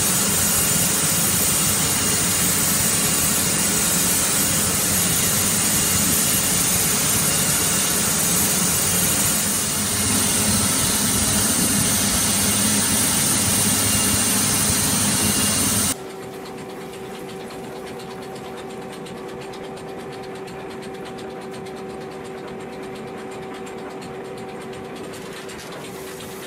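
Steady, loud industrial machinery noise with a strong hiss. About 16 seconds in it cuts off abruptly, and a much quieter steady hum with a few held tones follows.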